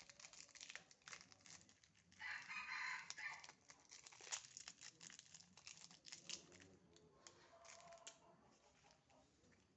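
A rooster crows once, about two seconds in, over scattered soft crinkling and clicking.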